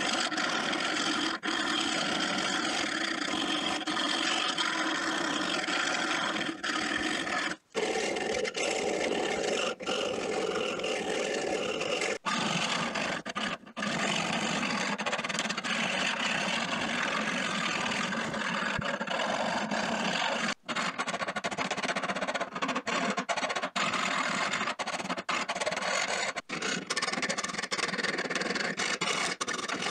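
Flat steel hand file scraping across the jaws of old iron pincers: a near-continuous rasping broken by a few short pauses between strokes.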